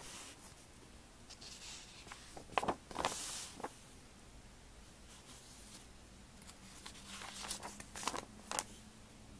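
Glossy catalog pages being turned by hand: two page turns, about two and a half seconds in and again around seven to eight and a half seconds, each a rustle of paper with a few sharp snaps.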